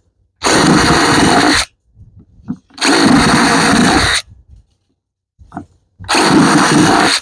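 Power drill running in three short bursts of about a second each, boring drainage holes through a plastic planting container.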